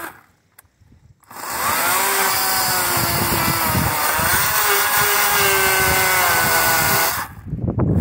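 Kobalt chainsaw running under load from about a second in, cutting low at the base of a cedar post, its pitch sagging slightly as it bites and then cutting off near the end. The chain is working against dirt and concrete at the post's foot, which dulls it.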